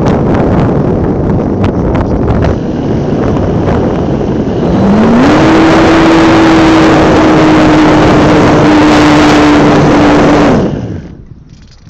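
RC model airplane's motor and the rush of air over a phone mounted on the plane. About four and a half seconds in, the motor throttles up with a rising pitch and runs steady at a high, even drone. It cuts off near the end, leaving much quieter wind.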